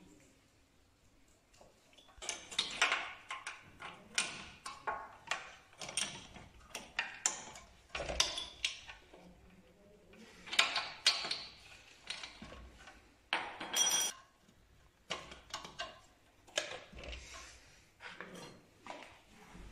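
Spark plug being screwed into a Peugeot 103 moped's cylinder head with a plug wrench: irregular metallic clicks and scrapes from the tool and plug, with one short ringing ping about 14 seconds in.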